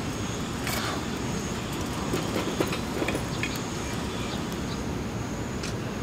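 Pine kindling burning under charcoal briquettes in a metal fire starter, with a few sharp crackles over a steady rushing rumble.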